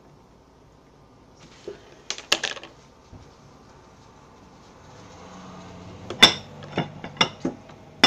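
Hands working borax slime in a glass mixing bowl: a quick cluster of clicks and clinks about two seconds in, then a faint rustle and several sharp knocks against the glass near the end.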